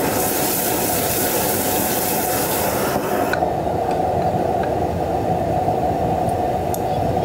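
Busy food-stall kitchen noise: loud frying sizzle over a steady kitchen drone, the sizzle cutting off suddenly about three seconds in while the drone carries on.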